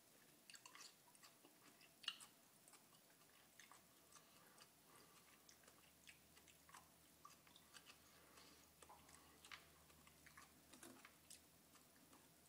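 Faint chewing of raw garlic cloves: a string of small wet mouth clicks and crunches, with one sharper click about two seconds in.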